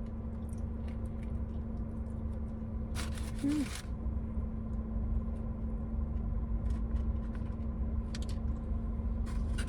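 Quiet eating and food-handling sounds: scattered small clicks and a short rustle about three seconds in, over a low steady background rumble.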